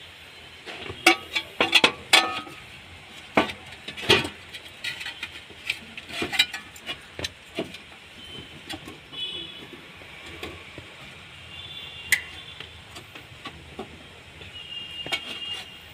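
Sharp clicks, knocks and clinks of hand work on a car's in-tank fuel pump assembly and its access cover, a quick cluster over the first half and a single sharp click later.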